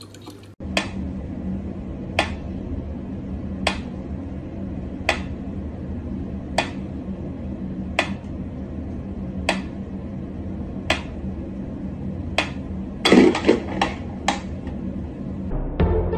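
Mechanical pendulum metronome ticking slowly and evenly, one sharp click about every one and a half seconds, with a quick flurry of several clicks near the end, over a steady low hum.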